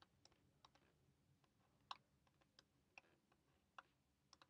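Near silence with a handful of faint, short clicks at irregular intervals: a stylus tip tapping on a tablet screen while handwriting.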